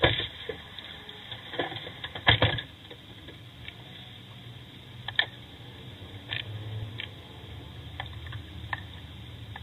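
Car engine running as a low hum inside the cabin, with irregular sharp clicks and knocks, the loudest right at the start and a pair about two and a half seconds in.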